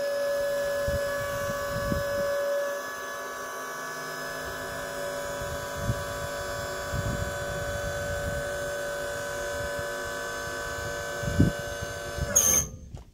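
Battery-powered electric-hydraulic pump whining steadily as it drives the bale spear's cylinder, raising and rotating the spear frame. The whine eases a little in level a few seconds in and sags slightly near the end, with a knock shortly before it cuts off.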